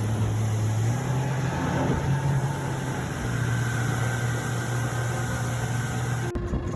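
An engine running steadily with a low, even hum. It cuts off abruptly near the end and is replaced by a rougher rushing noise.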